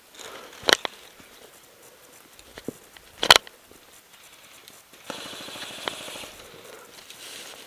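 Airsoft gunfire: a sharp snap about a second in, a tight cluster of snaps a little after three seconds, then a rapid rattling burst lasting about a second, starting around five seconds in.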